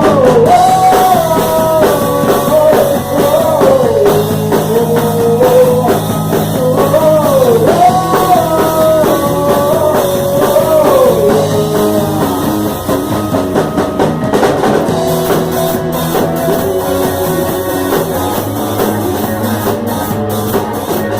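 Live band playing a rock-style worship song on drum kit and guitars. A lead melody line bends over the steady chords for about the first twelve seconds, then the band plays on a little more softly.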